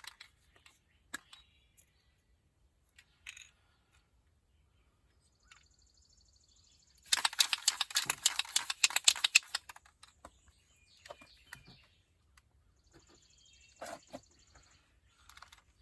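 An aerosol can of spray adhesive being shaken hard for about two seconds, its mixing ball rattling quickly inside, to mix the adhesive before spraying. Small clicks and handling knocks come before and after.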